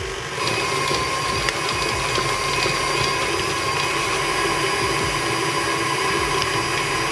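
Tilt-head stand mixer motor running steadily with a high whine, beating donut batter in a steel bowl; it gets louder about half a second in as the speed goes up.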